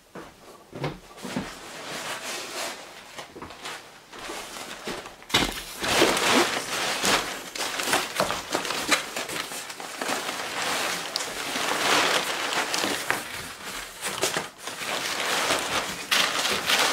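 Crumpled newspaper rustling and crinkling, with corrugated cardboard scraping against the box, as a cardboard-wrapped plate is pressed down into a newspaper-lined cardboard box. Quieter at first, busier and louder from about five seconds in.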